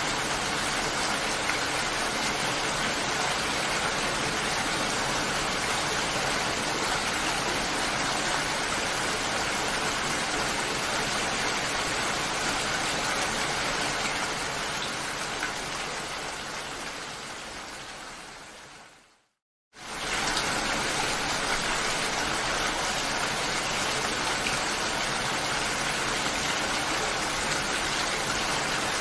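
Steady rain falling, an even hiss. About two-thirds of the way through it fades out over a few seconds to a moment of silence, then cuts straight back in at full level.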